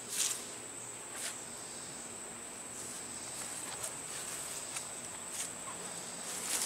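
Short, irregular scrubbing strokes of a maroon Scotch-Brite pad scuffing a car's body panel before primer. A steady high-pitched whine runs underneath.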